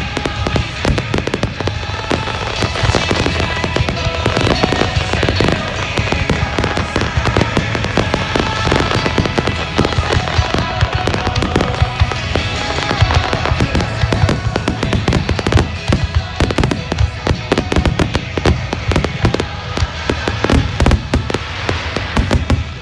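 Aerial fireworks shells bursting in quick succession, many sharp bangs close together that come thickest near the end, over music played through loudspeakers.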